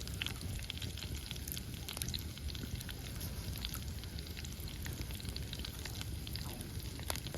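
Wood campfire crackling, with many small irregular pops and snaps over a low steady rumble.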